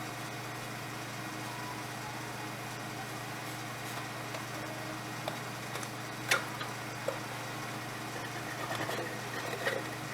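Steady low machine hum, with one sharp click about six seconds in and a few faint taps and rustles near the end.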